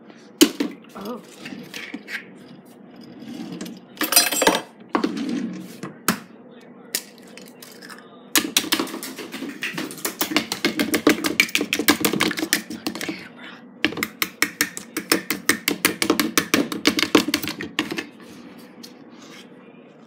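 A utensil beating eggs in a plastic mixing bowl: rapid, even clicking strokes at about six a second, in two long runs with a short break about 13 seconds in. Before that there are a few scattered knocks and a short rustle.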